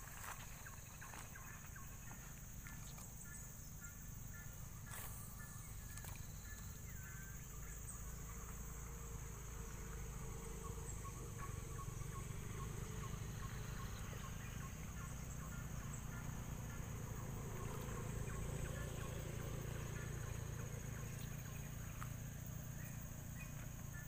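Tropical riverside forest ambience: a steady high insect drone, with a bird calling in runs of short repeated notes, and a low rumble underneath.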